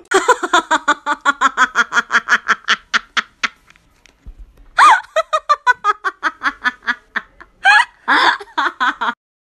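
A person laughing hard in long runs of quick 'ha-ha' bursts, about seven a second. The laughter breaks into a high squeal about five seconds in and again near the end.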